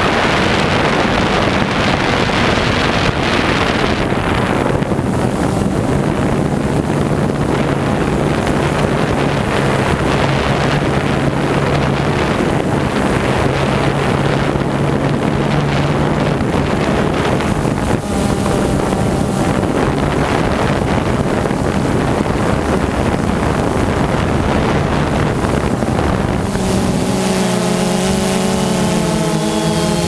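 Quadcopter's electric motors and propellers humming steadily while it hovers, heard from its onboard camera with wind noise on the microphone. About three seconds before the end, the motor pitches split apart and shift as the craft manoeuvres.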